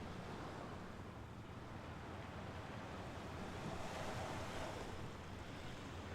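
Mediterranean Sea waves washing onto the shore, a steady wash with one wave swelling louder about four seconds in.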